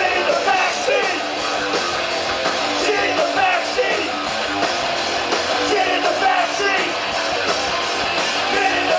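Live rock band playing, with electric guitar and a singing voice over sustained chords.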